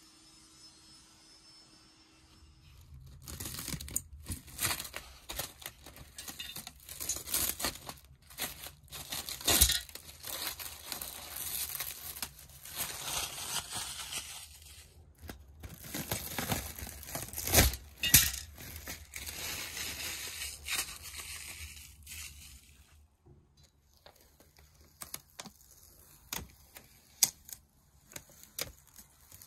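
Plastic film crinkling and tearing as it is pulled off and handled. It starts about three seconds in and crackles almost continuously for some twenty seconds, with a few sharper snaps. Near the end it thins to scattered light clicks and rustles.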